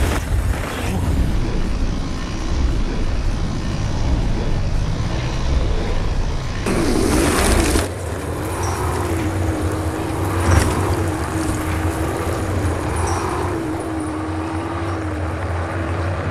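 Side-by-side off-road vehicle's engine running hard on a dirt track. A loud rush lasting about a second comes around seven seconds in, and a sharp thump about ten and a half seconds in.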